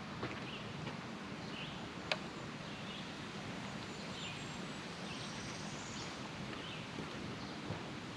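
Outdoor trail ambience: a steady hiss of background noise with short, faint bird chirps about once a second and a single sharp click about two seconds in.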